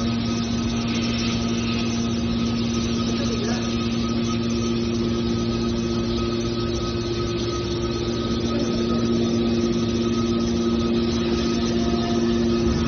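Small scrap metal baler running, a steady machine hum with several constant pitches held throughout.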